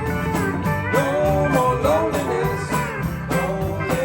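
Country music: a band playing with guitar, pitched lines sliding and bending over a steady beat between sung lines.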